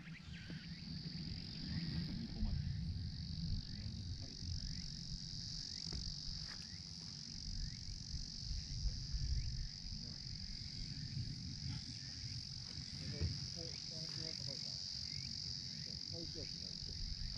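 Insects droning steadily at a high pitch, with a low rumble underneath.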